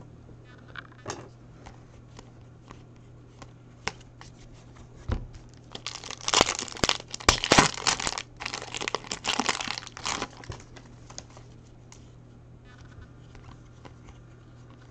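Foil trading-card pack wrapper being torn open and crinkled, loudest for about four seconds in the middle. Light scattered clicks of cards being handled come before and after.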